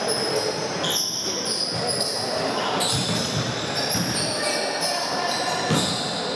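Basketball bouncing on a gym floor during play, with repeated short high-pitched sneaker squeaks and background voices.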